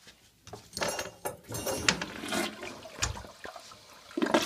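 Toilet flushing: water rushing through the bowl, getting louder near the end.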